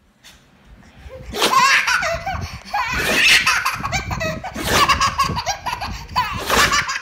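A baby belly-laughing in repeated fits, starting about a second in and rising to about four loud peaks.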